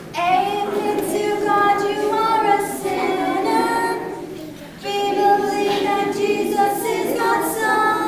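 A woman and a group of children singing a simple Sunday-school song together, in sung phrases with long held notes and a short breath between lines.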